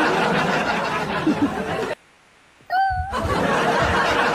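Laughter fills the first two seconds, then breaks off. After a brief silence there is a short, high rising note, and the laughter starts again.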